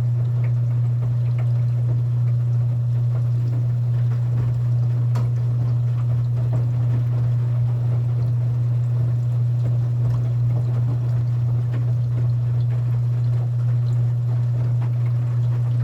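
Front-loading washing machine running: a steady low hum with faint scattered clicks and water moving inside the drum.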